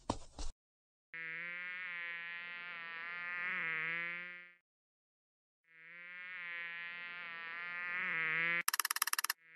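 Mosquito buzzing as it flies about, in two stretches of a few seconds each with a pause between, the whine wavering in pitch and swelling in loudness. A few clicks at the very start, and a brief rapid crackle of clicks near the end.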